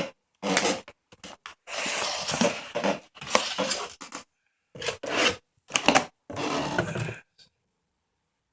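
Cardboard packaging being handled: several bursts of scraping and rustling as the inner box holding the speakers is pulled out of the outer carton, stopping about seven seconds in.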